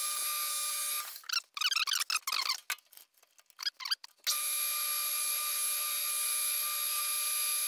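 Metal lathe running with a steady whine while turning a steel pulley blank. It stops about a second in, leaving a stretch of irregular clicks and scrapes, then runs again from about four seconds in.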